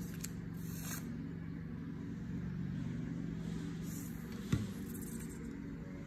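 Faint rustling and scraping of construction paper being handled and pressed down on a wooden table, with a single knock about four and a half seconds in, over a steady low hum.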